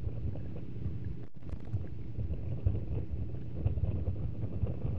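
Wind buffeting the microphone on board a boat at sea, a steady low rumble that flutters unevenly, with a momentary dropout about a second in.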